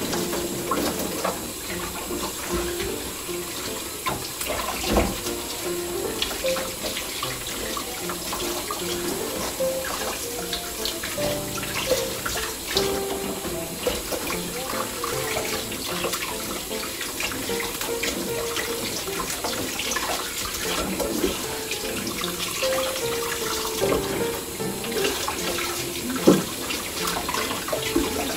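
Kitchen tap running steadily into a sink as leaf lettuce is rinsed under it, with small knocks and clicks of handling. Soft background music plays over it.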